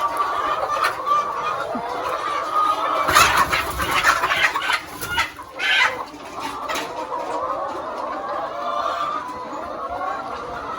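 A flock of laying hens clucking steadily, with a run of loud squawks about three to six seconds in.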